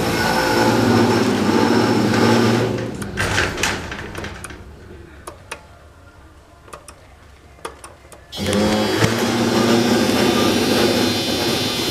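Machinery of a 2003 Otis hydraulic freight elevator running with a steady hum, winding down about three to four seconds in. After a quiet spell with a few sharp clicks, the motor hum starts again abruptly about eight seconds in and runs on.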